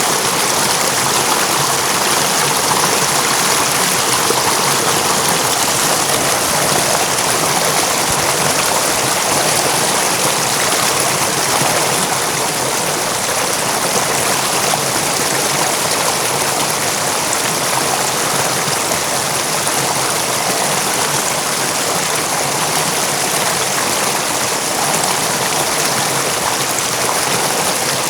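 River water running steadily over its bed: an even, unbroken rush with no single splashes standing out.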